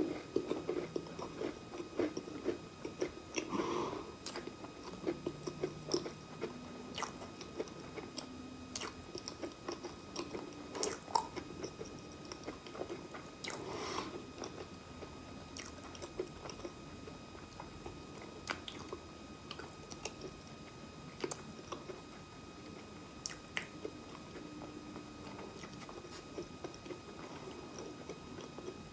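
Close-miked chewing of a large mouthful of cracker and banana, with irregular wet smacks, clicks and crunches, and a few short low hums.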